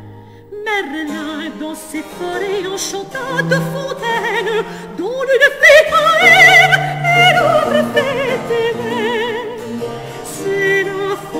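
French Baroque opera: voices singing with wide vibrato over sustained basso continuo notes, after a short pause right at the start. About halfway through, a voice slides up into a louder, held passage.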